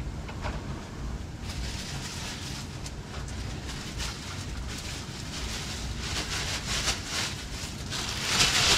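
Crinkling and rustling of a plastic shopping bag being rummaged through and lifted, loudest near the end, over a low steady rumble.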